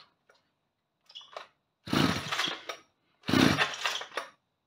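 Stihl 010 AV two-stroke chainsaw being pull-started on high idle: a faint short tug about a second in, then two full pulls of the recoil starter about a second and a half apart, each a short burst of the engine cranking over.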